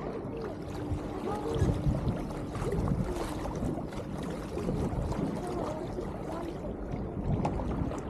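Small boat under way on a lake: a steady rush and splash of water along the hull, with faint voices.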